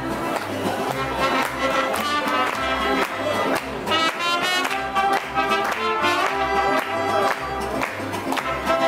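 Live mariachi band playing: trumpet and violins over strummed guitar and a deep, regular bass line, with people clapping along.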